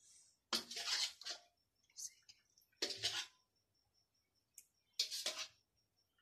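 A spoon scooping thick yogurt out of a bowl and dropping it onto the dish, three soft wet scrapes and plops about two seconds apart.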